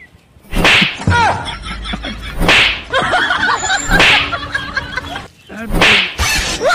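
Slaps to the face: four loud, sharp smacks, each about one and a half to two seconds after the last.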